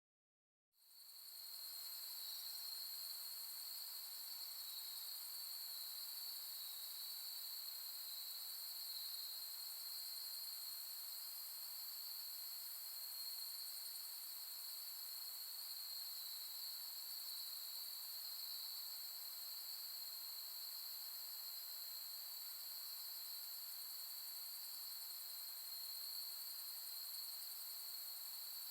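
Chorus of autumn night insects calling without pause, several high trills at different pitches overlapping in a steady bed. It fades in from silence within the first second.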